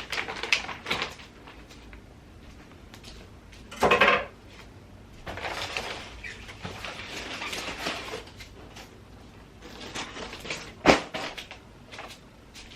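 Unpacking a new washing machine by hand: a few knocks, a loud short clunk about four seconds in, a stretch of rustling, and a sharp knock near the end.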